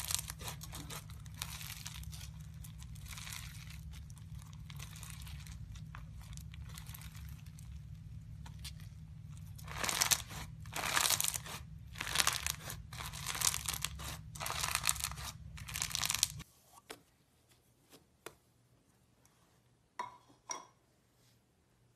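White, bumpy slime being squeezed and kneaded by hand, crackling and crunching in uneven bursts that are loudest about halfway through, over a low hum. The sound cuts off abruptly about three-quarters of the way in, leaving only a few soft clicks.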